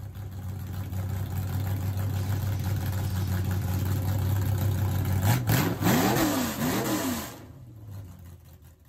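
Engine sound effect: a steady, deep engine drone, then a sharp hit about five seconds in and two quick revs that rise and fall before it fades out.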